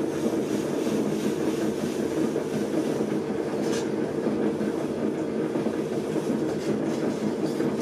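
Electric potter's wheel running steadily with an even motor hum, while a wooden tool scrapes at the base of a wet-clay mug on the spinning wheelhead, trimming it level.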